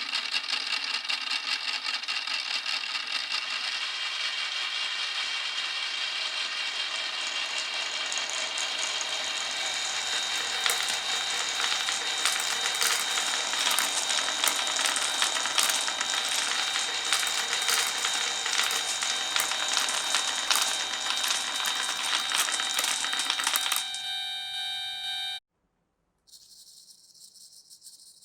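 Many marbles rolling and clattering down a marble run of wooden and plastic tracks: a dense, continuous rattle of clicks with a faint ringing hum, growing busier midway and cutting off suddenly a little before the end. A short faint hiss follows.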